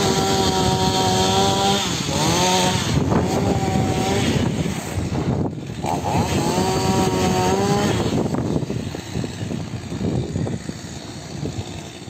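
Chainsaw revved to high speed in three spells of about two seconds each. The pitch climbs at the start of each spell and drops away at the end, and the saw runs quieter after about eight seconds. It is cutting back maquis scrub to make a firebreak.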